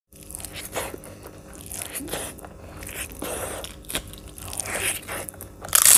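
Eating sounds: crunchy food being bitten and chewed in a series of irregular crunches, the loudest near the end.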